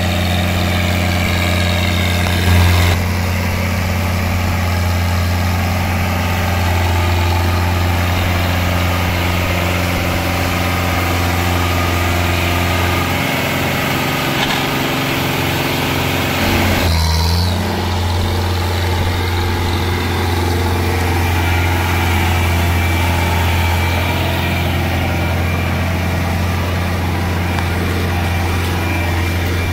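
A New Holland tractor's diesel engine runs steadily at a constant speed, close by, as the tractor pulls a rear-mounted paddy bund former through wet mud. There is a brief dip in the sound about halfway through.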